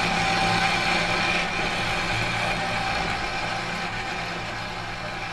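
Steady droning intro sound with a low hum under a wide hiss, slowly fading out.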